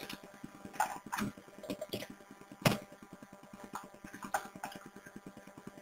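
Scattered light clicks of a computer mouse and keyboard keys, about eight in all, the loudest a little before the middle, while an e-textbook is paged to a new page. A faint, fast, even ticking runs underneath.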